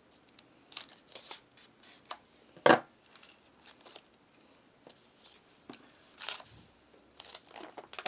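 Hard ration pouch being cut open with a knife blade: irregular short cutting and crinkling strokes, with one sharp knock nearly three seconds in.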